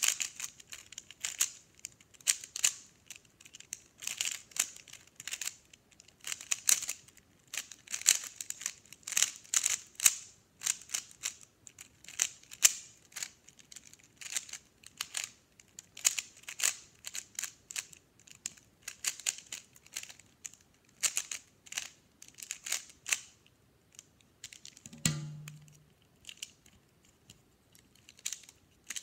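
Plastic speed-cube puzzles being turned rapidly by hand: a fast, irregular run of sharp clicks and clacks as the layers snap round, with one brief low hum near the end.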